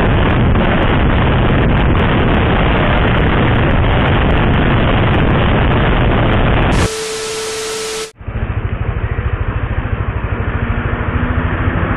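Wind rushing over the camera microphone together with the motorcycle's engine and road noise while riding. About seven seconds in, a cut brings about a second of hiss with a steady hum, then a lower, pulsing engine sound.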